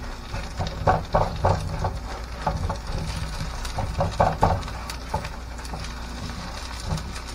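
Metal spoon scraping and tapping against a frying pan as a shredded-potato pancake is pressed thin, in irregular strokes that are loudest about a second in and again around four seconds in, over a steady low hum.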